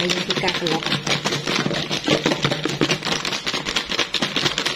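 Fried potato fries tumbling and rattling against the walls of a closed plastic food container being shaken to coat them in seasoning powder: a fast, dense, continuous clatter.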